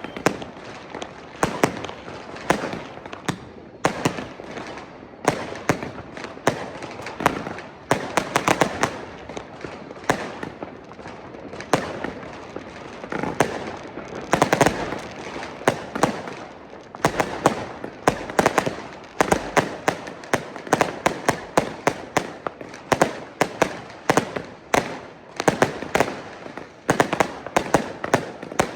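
Consumer fireworks going off continuously: many sharp bangs and firecracker cracks at irregular intervals, some in quick runs, over a steady crackling background of more distant fireworks.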